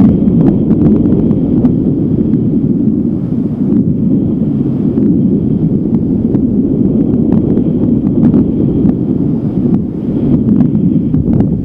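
Strong wind buffeting the microphone: a loud, steady low rumble with small gusty swells.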